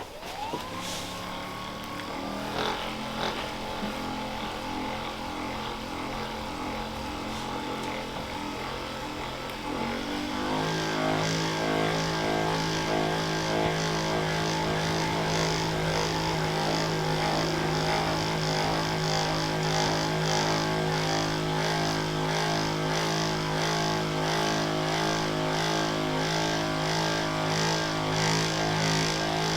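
Electric handheld massager starting with a rising whine and running steadily. About ten seconds in it is switched to a louder, higher speed setting and keeps running with a slight regular pulsing.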